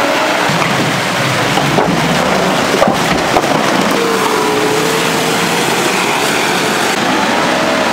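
Nissan Patrol off-road SUV driving through a stony water crossing and up a muddy track: engine running under load with tyres splashing through water and over stones. A few sharp knocks come around three seconds in, and a steady engine note stands out about halfway through.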